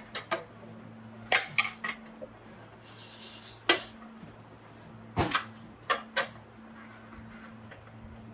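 Metal tools and engine parts clinking and knocking against each other in short, irregular clusters of sharp clanks, with a brief hiss about three seconds in, over a low steady hum.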